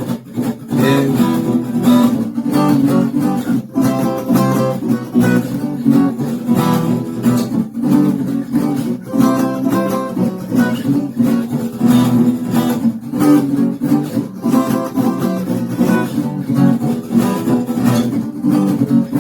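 Acoustic guitar strummed hard and fast in a driving rock rhythm, chords ringing without vocals.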